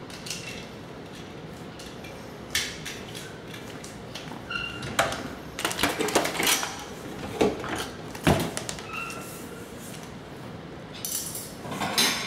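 A baby's hand patting and scraping a plastic high-chair tray while picking at a Cheerio: irregular taps and knocks, most of them in the middle of the stretch, with a few short faint squeaks.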